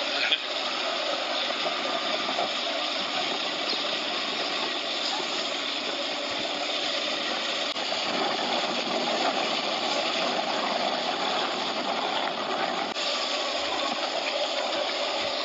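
Steady engine and wind noise from a motorcycle riding at a steady pace, heard from on board.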